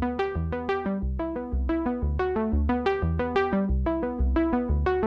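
Background music: a synthesizer keyboard tune of quick short notes, several a second, over a bass note that repeats about twice a second.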